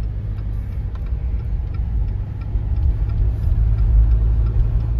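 A vehicle engine running with a deep, steady low rumble and a faint regular ticking, growing louder toward the end.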